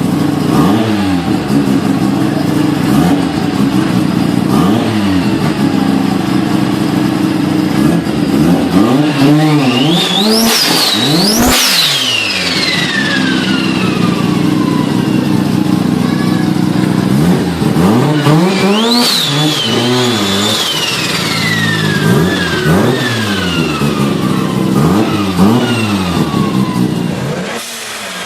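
Turbocharged car engine revved repeatedly in short throttle blips. Twice, about a third and two thirds of the way in, a harder rev brings a high turbo whistle climbing steeply, then sliding slowly down as the turbo spins down, with a sharp rush of air at the first peak as the throttle snaps shut.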